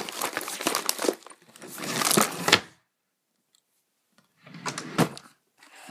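Rustling and clattering of objects being handled close to the microphone, in two bouts: a longer one at the start and a shorter one about four and a half seconds in.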